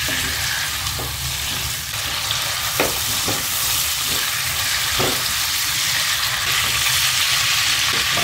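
Squid rings sizzling steadily as they fry in oil in a wok, stirred with a silicone spatula, with a few light clicks of the spatula against the pan.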